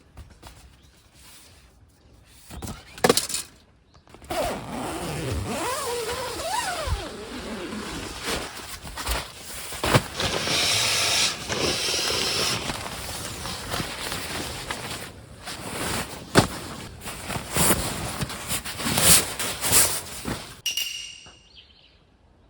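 Rustling and scraping of objects being handled, with a few sharp knocks and some short squeaks.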